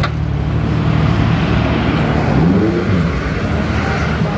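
Road traffic passing close by: a large coach's engine runs as a steady low hum over tyre and road noise. About two and a half seconds in, an engine note rises briefly as a vehicle accelerates.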